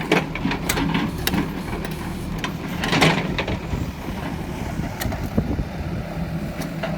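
Engine of heavy construction machinery running steadily, with scattered knocks and clatter, the loudest about three seconds in.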